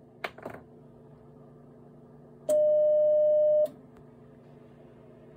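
A couple of soft knocks, then a single steady beep of a little over a second that cuts off abruptly, typical of a transceiver's CW sidetone while the Morse key is held down. A faint steady electrical hum runs underneath.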